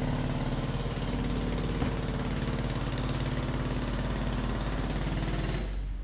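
A small engine running steadily with a fast, even throb, fading out near the end.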